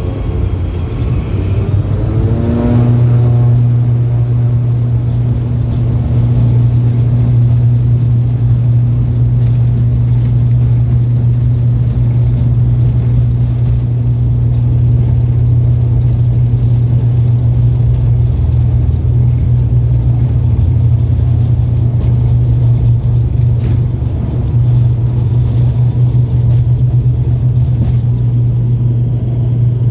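ATR turboprop airliner's engines and propellers coming up to take-off power: a rising tone over the first few seconds that settles into a loud, steady low drone.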